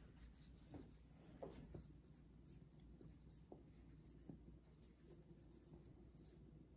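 Near silence, with faint rustling and scraping and a few soft ticks as an eggplant slice is dredged in flour by a plastic-gloved hand.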